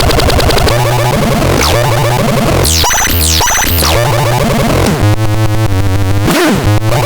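Synthesizer being played: a low, pulsing bass pattern under quick rising and falling pitch sweeps, then a harsh buzzing, warbling stretch past the middle before the pulsing returns.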